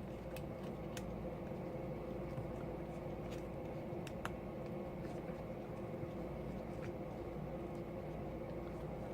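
A steady background hum with a handful of light, sharp clicks and taps, about six in all, from small tools and parts being handled on an opened iPhone 5c.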